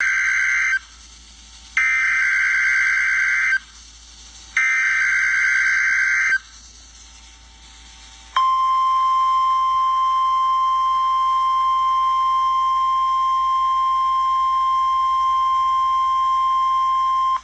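Emergency Alert System SAME header from a NOAA Weather Radio broadcast: three bursts of buzzing, warbling data tones, each under two seconds long with about a second's gap between them. About eight seconds in, the steady 1050 Hz weather radio alert tone begins and holds for about nine seconds. Together they open a Required Weekly Test.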